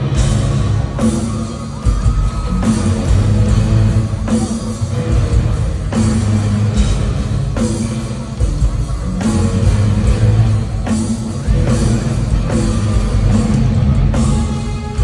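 Live rock band playing loud in an arena, with distorted electric guitars and a drum kit; the full band comes in suddenly at the start. Recorded from the crowd, so it is heavy and echoing.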